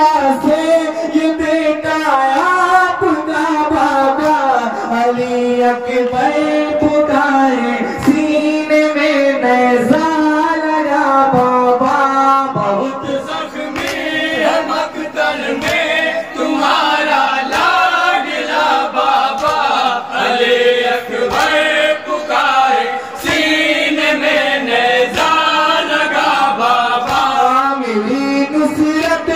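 Male voices singing a noha, a Shia mourning lament, in a drawn-out chant, with sharp slaps of hands striking chests (matam) running through it.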